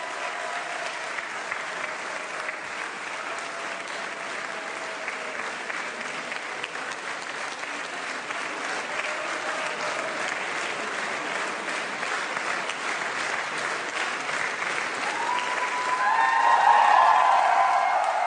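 A large crowd applauding steadily, a dense patter of many hands clapping. Near the end it swells as cheers and shouts rise over the clapping.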